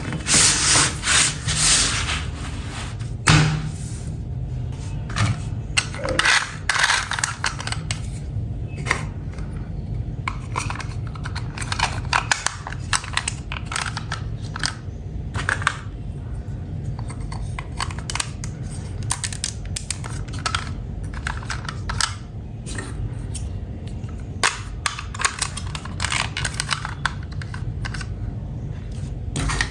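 Plastic toy pieces and packaging being handled: irregular clicks, taps and crinkling, busiest in the first few seconds, over a steady low hum.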